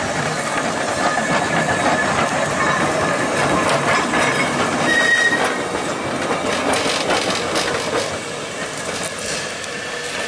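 Manx Electric Railway open crossbench tram car 16 and its open trailer 60 rolling past on the tracks: steady wheel-on-rail rumble with irregular clicks over the rail joints and a brief wheel squeal about halfway through.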